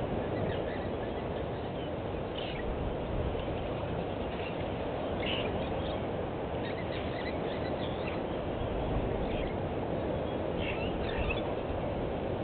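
Open bush ambience: a steady low rushing noise, with short high bird chirps breaking in every second or two.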